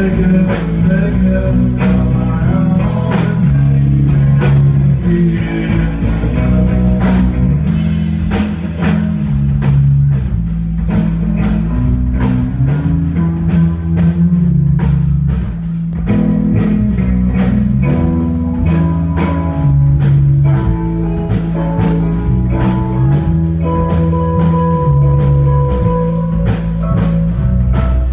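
Live rock band playing loud: electric guitars over a drum kit, with a low line of notes that repeats in a steady pattern under the drum hits.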